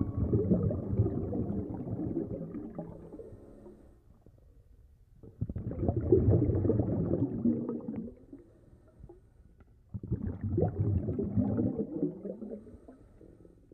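Wind buffeting the microphone in three gusts, each a rough rumbling noise a few seconds long with near-quiet gaps between.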